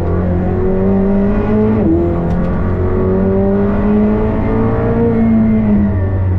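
Race car engine at full throttle, pitch rising through the revs, with an upshift about two seconds in and a long pull after it. Near the end the revs fall as the driver lifts off.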